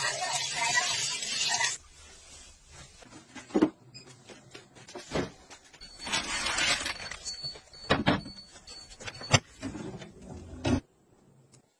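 Tap water running over hands for about two seconds, then scattered clicks and knocks, a burst of crinkling plastic packaging, and short knocks of items set into a fridge, eggs going into a plastic egg rack near the end.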